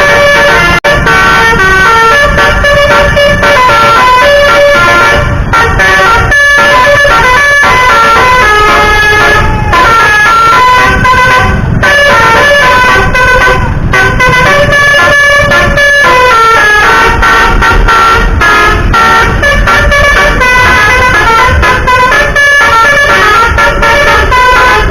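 Telolet basuri multi-tone bus horn playing a continuous melody. Several horn tones sound together and step to new notes every fraction of a second, over a low rumble.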